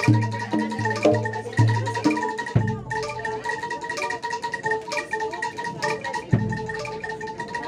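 Live Javanese gamelan music for a kuda lumping dance: struck bronze metallophones ringing over a steady pulse, with low drum strokes about twice a second over the first couple of seconds and a single stroke near the end.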